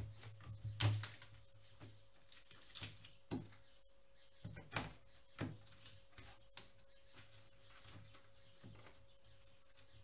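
Irregular plastic clicks and knocks from a Razer BlackWidow Ultimate mechanical keyboard being handled and pressed, the louder ones in the first half, fainter ticks after. A faint steady hum runs underneath.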